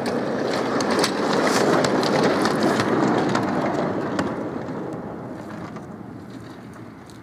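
Ride-on miniature railway train, a diesel-outline locomotive hauling a brake van, passing close by. Its wheels rumble on the track with scattered clicks, loudest in the first few seconds and fading steadily as it moves away.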